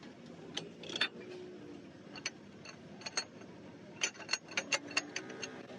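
Metal tools and engine parts clinking and tapping, sharp clicks with a brief metallic ring, irregular at first and then a quicker run of strikes in the second half.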